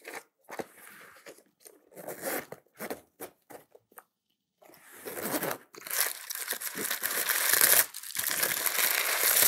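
Rustling and crinkling as items and packing material are stuffed into a waxed canvas bag: scattered short rustles at first, a brief hush about four seconds in, then a loud continuous rustle.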